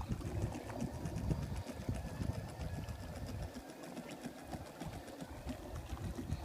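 Small electric motor of a handmade RC model boat running with a fast, even buzz, under an uneven low rumble of wind on the microphone.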